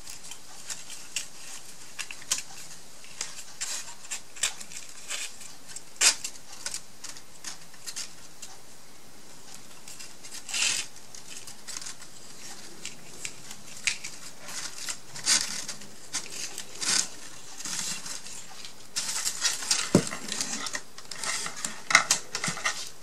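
Paper and twine being handled on a tabletop: scattered light rustles, taps and clicks at an uneven pace, busier near the end.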